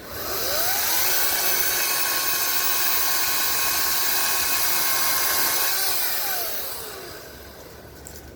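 Ryobi 40-volt brushless battery chainsaw spinning up, running at a steady high whine for about five seconds, then winding down as the trigger is released.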